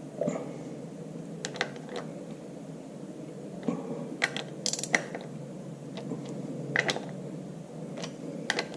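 Ratchet wrench clicking in short, irregular spells with occasional metal clinks as the bolts on a Farmall Super MTA's independent power take-off housing are drawn down, over a steady low hum.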